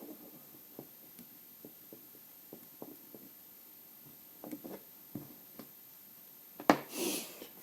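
Faint, scattered light clicks and taps of a car wiring harness and its plastic connectors and relays being handled, with one sharp click near the end followed by a brief rustle.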